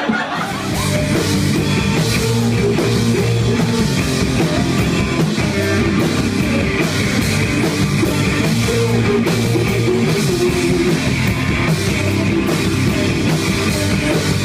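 Live punk rock played loudly on electric guitar and drum kit, starting about half a second in.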